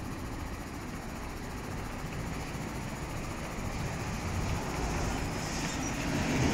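Isuzu 4HK1 diesel engine running steadily at idle, a low rumble that grows somewhat louder about four seconds in.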